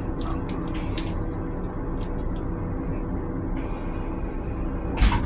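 Steady low rumble inside an M7 railcar restroom, with a few light ticks early on. About three and a half seconds in, a high hiss starts, and near the end a sharp, loud clunk comes as the stainless-steel toilet's flush cycle begins.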